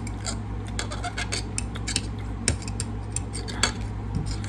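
Eating sounds close to the microphone: an irregular run of sharp clicks and taps over a steady low hum.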